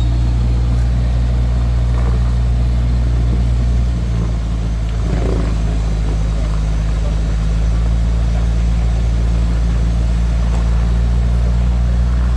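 Off-road vehicle engine running steadily at one constant speed, with no revving.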